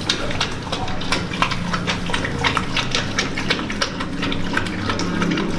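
Pit bulls lapping milk from a plastic basin: a quick, irregular run of wet laps and slurps.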